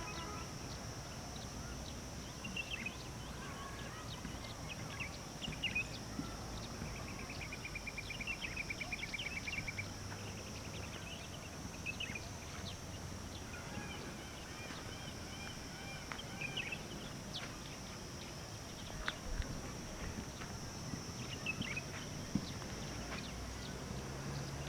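Outdoor birdsong: scattered short chirps, with a rapid even trill lasting a few seconds near the middle, over a steady high-pitched whine.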